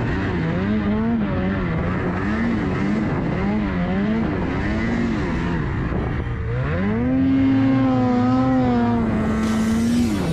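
Snowmobile engine revving up and down over and over as the sled plows through deep powder. About seven seconds in it climbs to a steady high rev, held until near the end.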